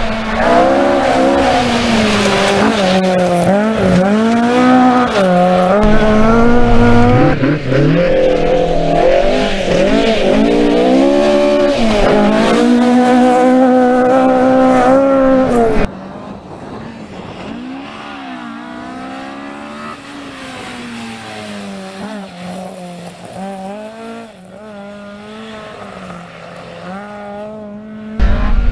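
Ford Escort RS1600 rally car engine revving hard, its pitch climbing and dropping again and again through gear changes and lifts. About halfway through the sound cuts to a more distant, quieter run of the same revving. It comes close and loud again near the end.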